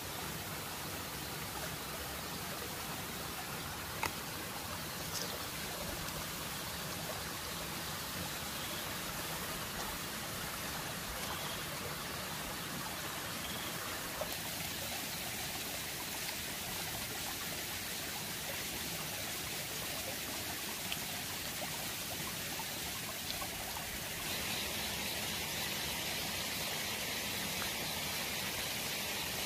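Small shallow stream trickling over rocks, a steady rush of water, with a few faint clicks. The rush grows a little brighter and louder near the end.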